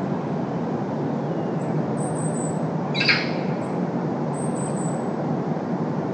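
Steady rumble of distant road traffic, with a short bird call about three seconds in and faint high chirps around it.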